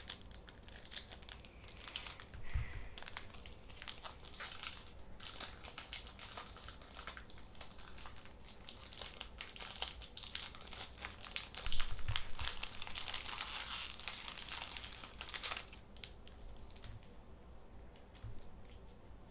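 Foil wrapper of a Pokémon Astral Radiance booster pack being crinkled and torn open, a dense crackling that grows loudest about twelve seconds in and dies down a few seconds before the end.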